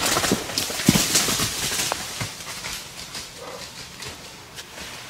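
A shot white-tailed buck crashing off through dry leaves and brush, a rapid run of crackles and thuds, loud at first and fading away within about three seconds.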